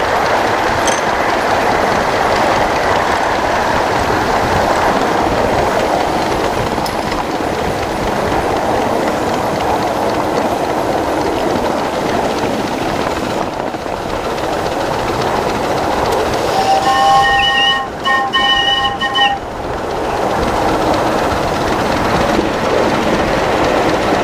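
1-inch-scale live steam Pacific locomotive running on its miniature track, a steady rush of running noise from the engine and riding car on the rails. About two-thirds of the way through, its steam whistle sounds several notes at once in two blasts, the second longer.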